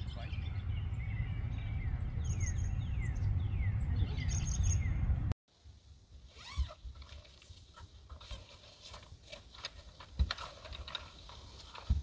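Small birds chirping, with a series of quick downward-sliding chirps, over a low wind rumble on the microphone; this cuts off abruptly about five seconds in. Then quieter handling sounds follow: fabric rustling with scattered clicks and a few soft knocks as a fabric bag is unpacked on a folding table.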